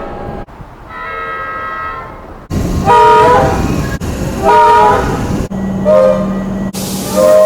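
Comeng train horns sounding in a string of separate recordings cut together: a held horn chord, then two loud blasts about a second and a half apart whose pitch wavers, then shorter blasts near the end.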